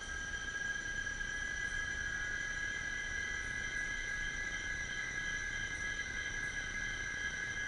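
Jungle insect chorus: several insects holding steady, unbroken high tones at once over a faint low hiss.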